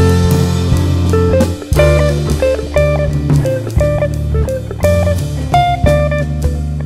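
Background music: guitar notes over bass and drums at a steady beat.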